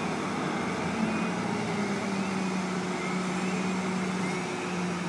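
Fire apparatus engine running steadily under an even rushing noise from fire hoses spraying water onto a burning garbage truck.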